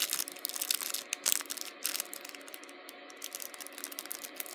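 Small bag crinkling as it is opened and handled, in irregular crackles that thin out after about two seconds.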